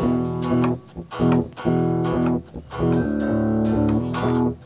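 Guitar recorded through a USB audio interface, playing chords in rhythmic stabs, some held and some short, with brief breaks between phrases.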